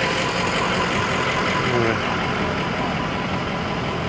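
Ambulance van's engine idling steadily, heard as a constant rumble and hiss.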